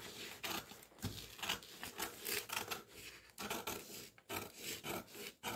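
Scissors cutting through brown kraft pattern paper for a sewing pattern: a run of irregular short snips with the paper rustling between them.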